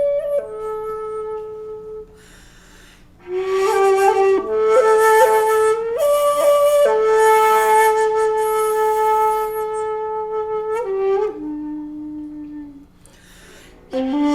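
A 2.4 shakuhachi, a long, low-pitched bamboo end-blown flute made by Ichijo Kobayashi, played in long held notes that step and bend in pitch, with a breathy edge. The phrases are broken twice by short pauses of breath noise.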